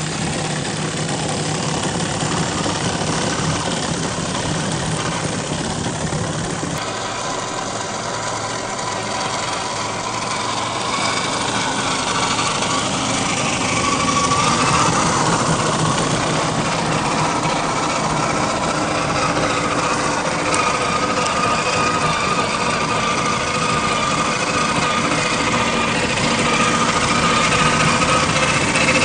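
Gmade GS02F Buffalo radio-controlled scale truck driving off-road, its electric motor and gear drive whining steadily. The whine rises in pitch and gets louder about halfway through as the truck speeds up.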